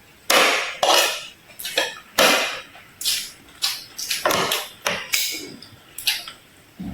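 Irregular sharp knocks and clatter of kitchenware, about a dozen strikes in quick uneven succession.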